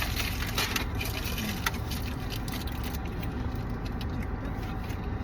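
Steady low rumble inside a car's cabin, with scattered light clicks and rustles of food and wrappers being handled while eating.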